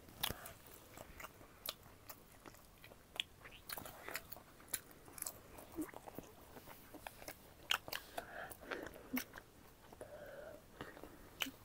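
Close-miked eating: irregular crunchy bites and chewing.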